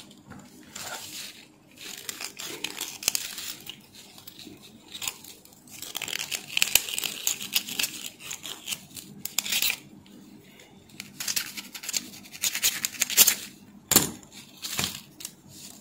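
Cloth rag rubbing and rustling against the glass solder chamber of a Weller DSX 80 desoldering gun as the chamber is wiped clean of solder residue, in several scrubbing spells, with two sharp knocks near the end.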